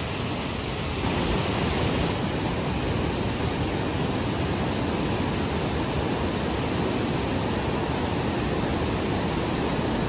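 Rain falling steadily, an even hiss that gets a little louder about a second in.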